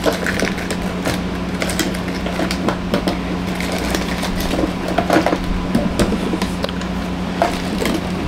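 Scattered small clicks, knocks and rustles of a small LED light being handled, over a steady low hum.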